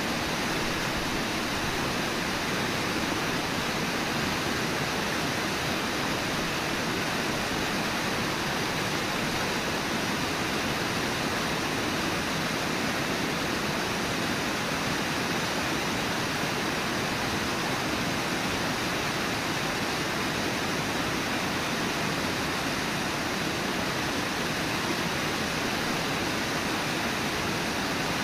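Brooks Falls rushing: the river pouring over the falls in a steady, even noise of water that does not change.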